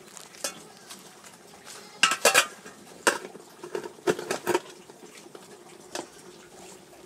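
Aluminium pot lid set onto an aluminium cooking pot and shifted into place. Metal clatters on metal, loudest about two seconds in, with more clinks and rattles a second or two later and a light tap near the end. The lid rings briefly after the strikes.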